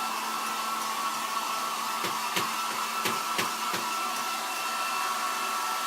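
Handheld hair dryer blowing steadily: an even airy rush with a constant motor whine. A few short clicks come through between about two and four seconds in.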